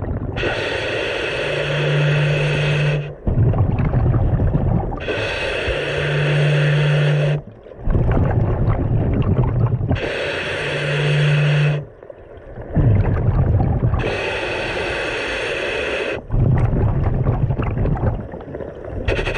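Scuba diver breathing through a regulator underwater: four slow breath cycles, each a hissing inhale with a steady low hum from the regulator, followed by a low rumble of exhaled bubbles.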